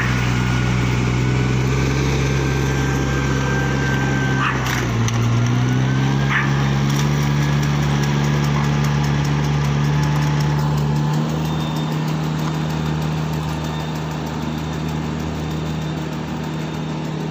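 Small engine of a riding rice transplanter running steadily as it plants across a flooded paddy, its pitch rising a little about five seconds in, with a couple of short mechanical clicks. It grows fainter after about eleven seconds as the machine moves away.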